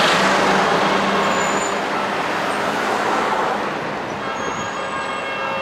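CSR electric multiple unit rolling slowly over the track: wheel-on-rail rumble with a steady low hum from the train, easing off slightly.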